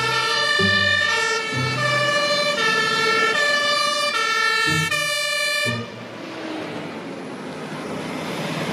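Two-tone sirens of German fire engines sounding as a convoy passes, several horns overlapping and stepping between high and low pitches. About six seconds in the sirens cut off, leaving the rushing noise of the trucks' engines and tyres, growing louder as a vehicle comes close.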